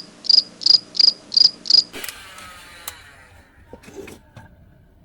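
Insect chirping: short, high, evenly spaced chirps, about three a second, that stop about two seconds in. A sudden noise follows, with a fading hiss and a few faint clicks and rustles.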